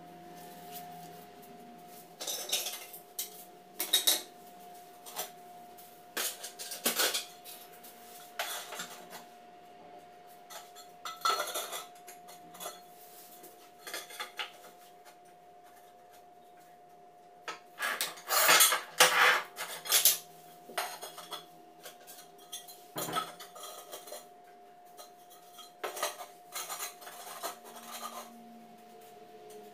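Ceramic tiles clinking and clattering as they are picked up, stacked and set down, with a thick cluster of clatters about two-thirds of the way in.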